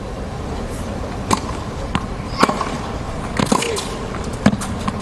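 Tennis rally on a hard court: a run of sharp pops from racket strings striking the ball and the ball bouncing on the court, about one every half second to a second, over a quiet stadium crowd.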